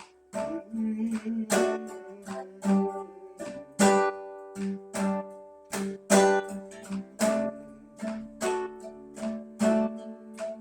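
Acoustic plucked-string instrument strumming chords in a steady rhythm, the strongest strokes about once a second with lighter ones between, recorded through a small computer microphone.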